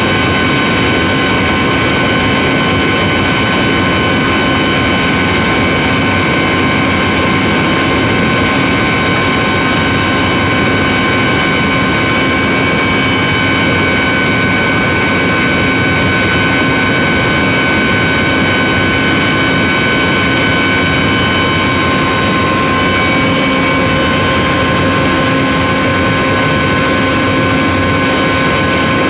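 Electric motor and pump running steadily: a loud, even machinery noise with a constant high whine on top.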